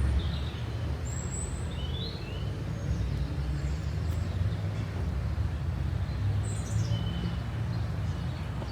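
Town street ambience: a steady low rumble of distant traffic, with small birds chirping briefly several times.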